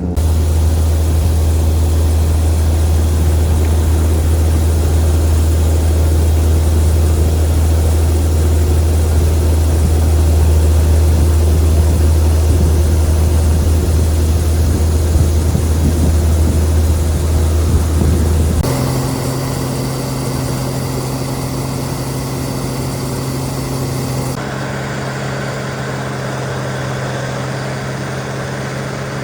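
Heavy farm machinery engines running steadily during soybean harvest: a loud, deep steady hum that changes abruptly to a quieter, higher-pitched steady hum about two-thirds of the way through and changes again near the end, as separate shots are cut together.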